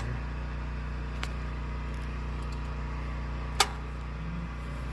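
A steady low mechanical hum, with one sharp click about three and a half seconds in.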